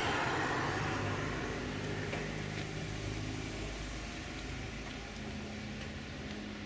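A motor vehicle passing by and moving away, its tyre and engine noise fading slowly to a low hum.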